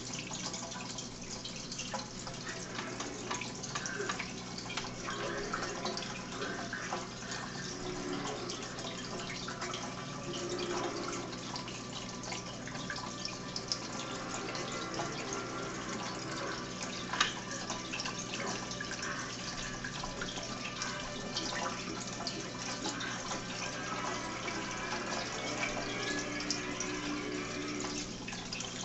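Aquarium filter running: steady trickling water with many small pops and clicks over a low steady hum.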